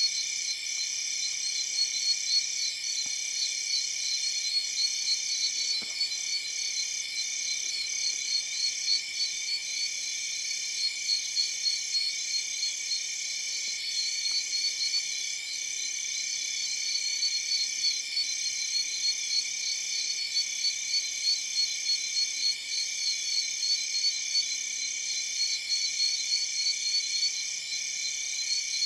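Night chorus of calling insects and frogs in tropical forest: several steady high-pitched trills layered over one another, one of them pulsing rapidly, going on without a break.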